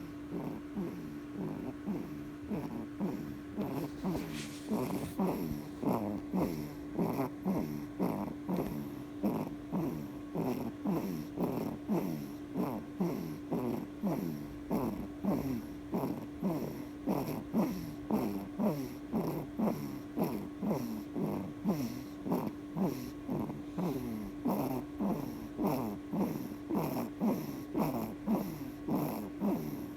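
A newborn baby snoring in quick, rhythmic snorts, each breath sweeping down in pitch, a buzzing run that sounds like a motorbike.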